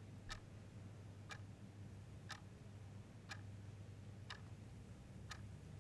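Clock ticking faintly and evenly, once a second, over a low steady hum.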